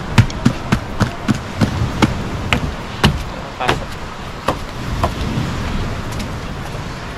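Footsteps in flip-flops slapping and knocking on a wooden deck, about two to three a second, thinning out near the end, over a steady background hiss.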